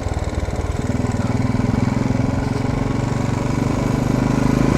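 Royal Enfield Bullet's single-cylinder engine thumping steadily with its low put-put-put exhaust beat while riding, getting louder about a second in and rising slightly in pitch as it pulls harder.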